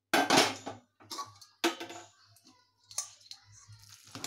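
A metal ladle scraping and knocking against the inside of an aluminium pressure cooker while cooked sambar rice is stirred and scooped out, with a few ringing clanks, the loudest at the start.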